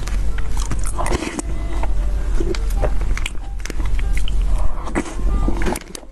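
Close-miked eating of a soft, creamy filled dessert with a metal spoon: wet, sticky mouth sounds and chewing, with short clicks of the spoon scooping against the plate.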